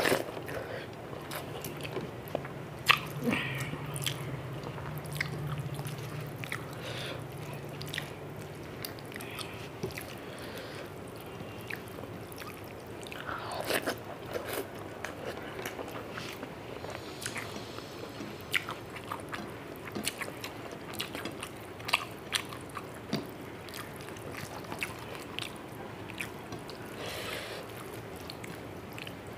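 A person eating rice and fish curry with their fingers, close to the microphone: wet chewing and mouth clicks, with fingers mixing the rice on a plate, in many short scattered clicks and smacks.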